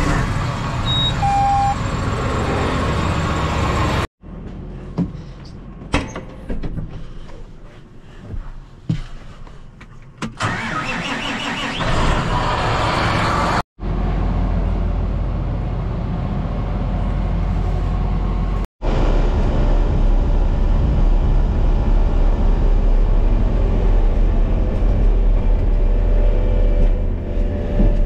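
Farm tractor diesel engines running, heard in several short cuts, with a quieter stretch of clicks and knocks a few seconds in. In the last part the engine is heard from inside the tractor cab, loud and steady.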